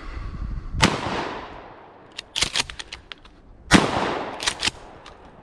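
Two blasts from a 12-gauge shotgun about three seconds apart, each ringing out and fading. A quick run of sharp clicks follows each shot.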